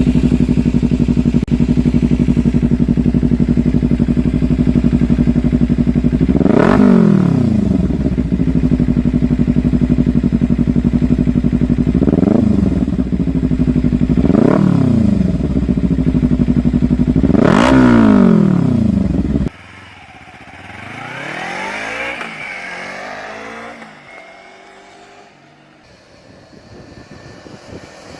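Kawasaki Ninja 300 parallel-twin engine idling steadily, blipped four times with short revs that drop straight back to idle. About two-thirds of the way in it cuts to a quieter Ninja 300 passing by, its pitch rising and then falling as it goes.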